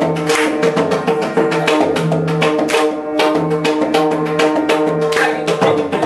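Odissi mardala, a two-headed barrel drum, played by hand in a fast, dense rhythmic pattern of sharp strokes, with deep bass strokes from the low head recurring about once a second. A steady drone holds underneath.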